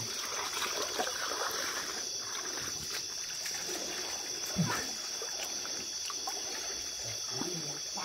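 River water trickling and flowing, under a steady high drone of night insects, with one brief louder sound about halfway through.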